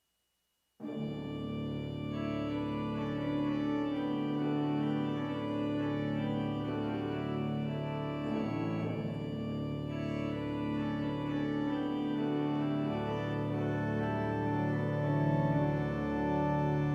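Organ playing sustained chords that change every second or two, starting suddenly just under a second in.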